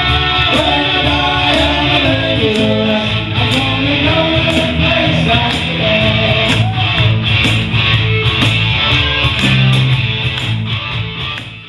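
Live band playing rock music: guitars and bass over a steady beat of percussion strikes, with the cajon player's part among the credited line-up. The music fades out near the end.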